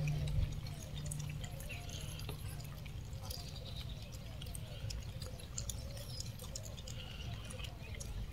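Quiet outdoor background: a steady low rumble with many faint scattered clicks and a few soft, short chirp-like calls.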